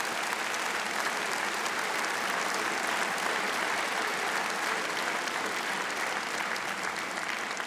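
Large audience applauding steadily, the clapping easing slightly near the end.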